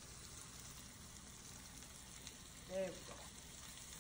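Chicken breasts frying in a pan, a faint steady sizzle and crackle. A short hummed vocal sound comes a little before three seconds in.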